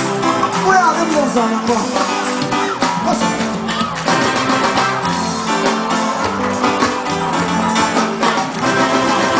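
Live reggae band playing, with guitar prominent over a steady bass-and-drum beat.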